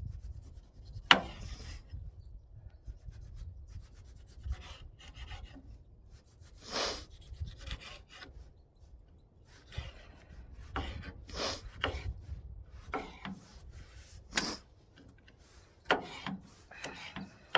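Kitchen knife cutting up a tomato on a cutting board: irregular scraping and knocking strokes, the sharpest knock about a second in, with wind rumbling low on the microphone.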